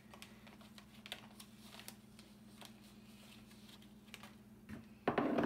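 Light, irregular taps and clicks of a small glass bowl knocking against a plastic zip-top bag as dry ingredients are tipped in, with a louder bump near the end.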